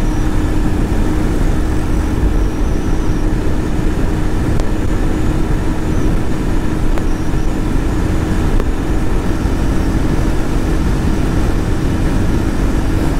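Motorcycle cruising steadily at highway speed: heavy wind rush on the microphone over a steady engine drone.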